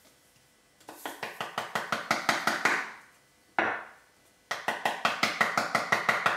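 Salt grinder being twisted by hand over a glass of vinaigrette: two runs of quick ratcheting clicks, about nine a second, with a brief noise in the pause between them.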